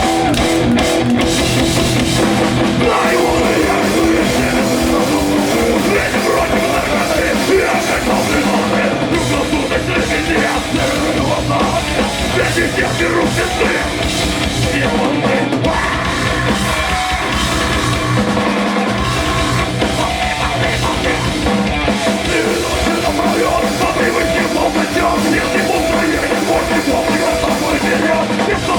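Live rock band playing loud, with a drum kit and electric guitars.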